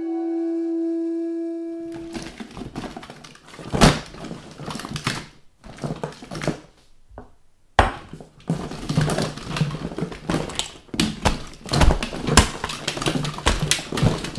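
A last held note of a woodwind jingle ends about two seconds in. Then comes a busy run of clattering, knocking and rustling of objects being moved about and rummaged through on a cluttered shelf, with several sharp loud thuds.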